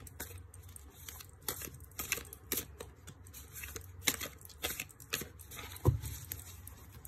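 A deck of tarot cards being shuffled by hand: quick, irregular papery flicks and slides as cards are dropped from one hand into the other. About six seconds in, one louder tap with a low thud as the deck is knocked square.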